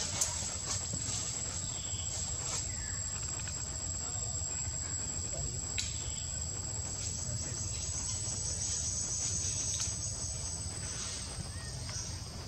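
Insects calling: a steady, high-pitched shrill drone that stops about a second before the end, over a low background rumble.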